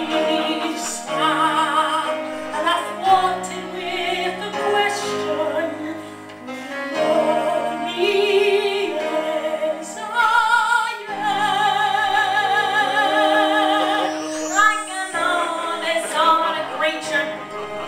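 Two singers belting a Broadway ballad duet with heavy vibrato, one of the voices coming over a Skype video call through the room's speakers. A long held note begins about eleven seconds in and ends in a sliding fall a few seconds later.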